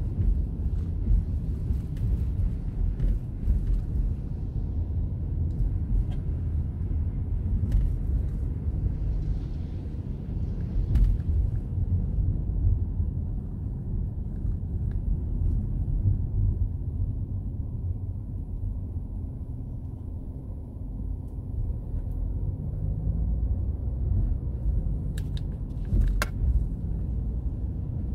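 Steady low rumble of a car driving on wet pavement, heard from inside the cabin: engine and road noise, with a few faint clicks and a brief higher hiss about ten seconds in.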